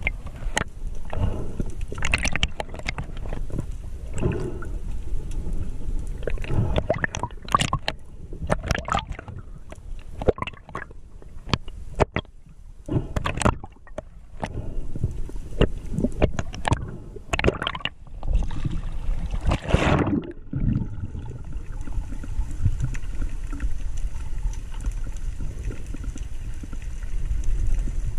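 Underwater sound picked up by a diver's camera: a steady low water rumble with irregular gurgles and clicks, a longer rushing burst about twenty seconds in, then a steadier hiss.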